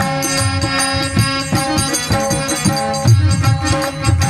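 Instrumental passage of a Maithili mangal geet folk song: harmonium holding steady reed tones while a hand drum beats a low rhythm and rattling hand percussion jingles on the beat.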